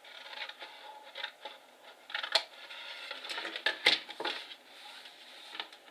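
Stiff cardstock rustling and scraping as a scored box base is folded and handled, with sharp clicks, loudest about two and a half and four seconds in.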